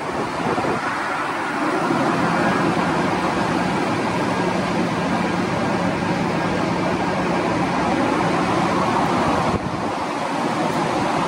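A woman's Bhramari (humming bee) breath: a steady low hum on one pitch, held for about eight seconds on the exhale and stopping near the end, over steady wind noise on the microphone.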